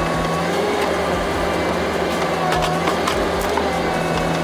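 Westtech Woodcracker hydraulic felling shear on a wheeled excavator cutting through a tree trunk: the wood cracks and splinters several times around the middle, over the steady running of the excavator's diesel engine.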